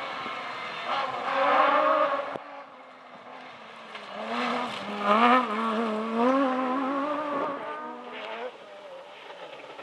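Rally car engine at high revs, its note climbing about a second in; then a close pass with the engine note rising in steps and falling away, loudest around the middle.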